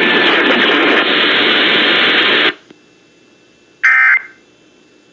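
Weather-radio static hiss that cuts off abruptly about two and a half seconds in, then one short screechy digital data burst about a second and a half later: an Emergency Alert System SAME tone burst, short enough to be the end-of-message code that is sent three times.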